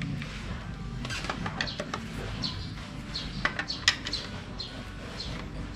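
Scattered light metallic clicks and taps of a wrench tightening the oil filter cover bolts on a motorcycle engine, with small birds chirping repeatedly.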